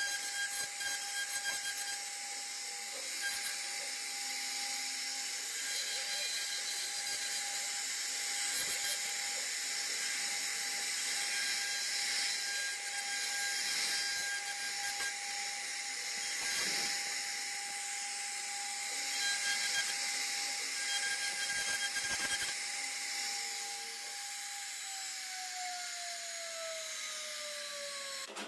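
CNC router spindle whining steadily with the hiss of the bit cutting wood; near the end the whine falls in pitch as the spindle winds down.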